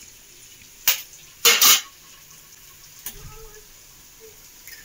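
Eggs being cracked with a metal spoon: sharp taps of the spoon against the eggshells, one about a second in, a quick loud cluster around a second and a half, and a fainter tap near three seconds.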